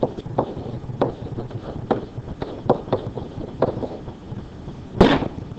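Stylus pen tapping and stroking on a digital writing surface while an equation is handwritten: short irregular clicks and knocks about every half second, with a sharper, louder one near the end, over a faint steady low hum.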